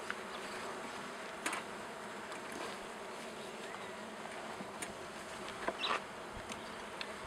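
Steady buzzing of a mass of honey bees around an opened hive, with a few light clicks.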